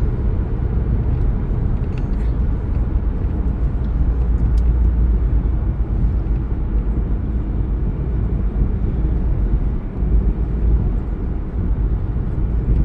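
Steady low rumble of road and engine noise from a car driving at highway speed, heard from inside the cabin.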